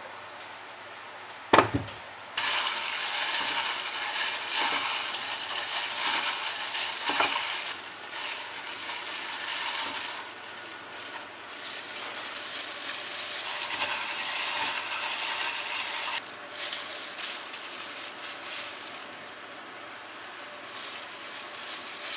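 A sharp knock, then food sizzling in a hot pan as it is stirred. The sizzle starts suddenly about two seconds in and softens for the last several seconds.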